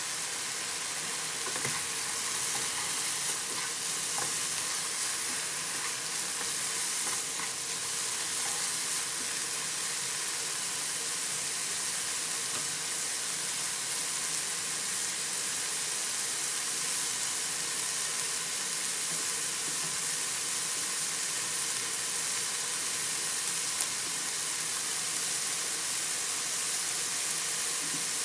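Diced pig heart and onion sizzling steadily as they fry in a nonstick pan, with a few light scrapes of stirring in the first several seconds.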